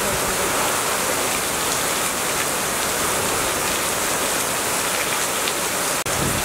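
Heavy rain pouring steadily onto an asphalt road, a dense even hiss of drops striking the wet surface. It cuts out for an instant near the end.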